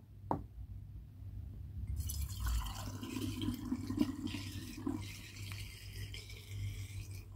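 Homemade banana wine poured from a plastic container through a plastic funnel into a bottle, splashing and filling. The pour begins about two seconds in and runs on steadily.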